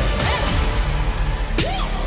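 Film-trailer music with a driving beat of repeated percussive hits.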